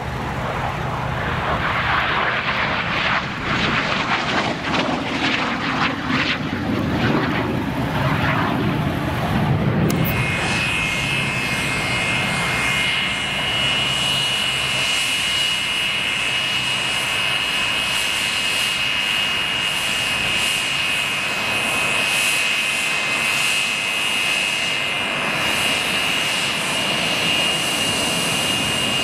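North American F-86 Sabre jet flying overhead, its jet noise swelling and wavering. About ten seconds in this gives way to the Sabre's turbojet at low taxi power, a steady high whine over a rushing exhaust.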